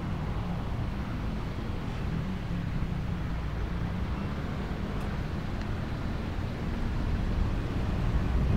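Steady low road and engine rumble of a car driving slowly in traffic, heard inside the cabin. It grows louder near the end as the car picks up speed.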